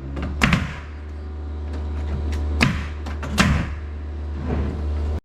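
Three sharp knocks on wooden roof sheathing, about half a second, two and a half and three and a half seconds in, over a steady low machine hum that starts at the outset.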